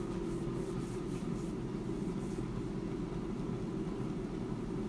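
Klarstein AeroVital air fryer running mid-cook at 200 °C: a steady low whir from its fan.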